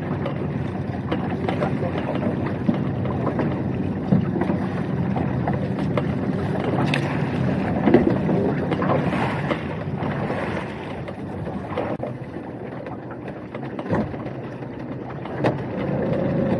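Small fishing boat's engine running steadily, with a few knocks on deck.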